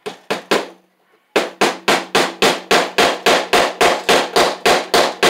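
Hammer driving a cable staple over Romex cable into a wooden backboard: three quick blows, then after a short pause a steady run of about fifteen blows at roughly four a second.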